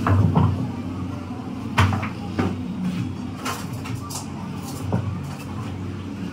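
A steady low hum of running machinery with a few sharp knocks and clatters over it, the loudest just under two seconds in.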